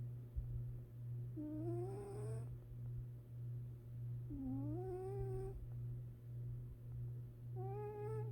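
Sleeping domestic cat snoring softly: three snores about three seconds apart, each a rising tone about a second long, over a steady low hum.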